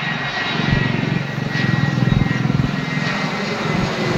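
Airplane flying low overhead, its engines making a steady rumble.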